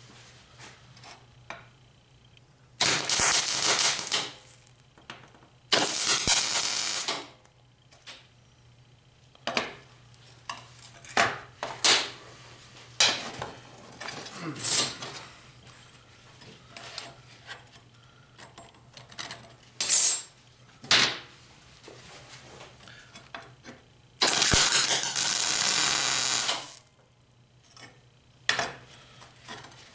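MIG welder tack-welding steel parts: three bursts of arc crackle, about 3 s in, about 6 s in and a longer one about 24 s in, with metal pieces clinking and knocking on a steel bench in between.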